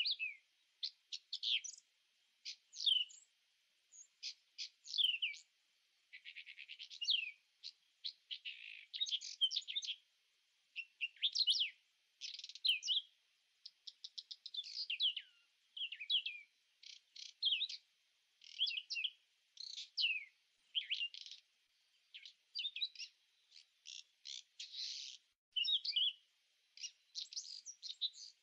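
Songbirds chirping and calling continuously: many short, high notes and quick downward sweeps, with a rapid buzzy trill about six seconds in.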